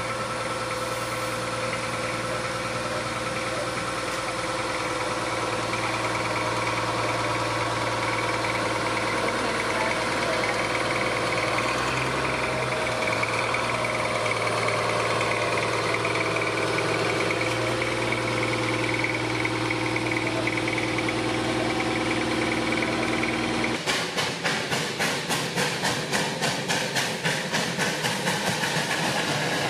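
Huckleberry Railroad No. 12's diesel engine running steadily as the small diesel locomotive and its train pass. About 24 seconds in the sound changes to Alaska Railroad No. 152, a steam locomotive, running with a rhythmic beat about three times a second.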